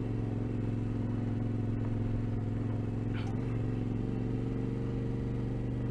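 Vehicle engine running steadily while driving a rough unsurfaced track, with a slight shift in its pitch about three seconds in.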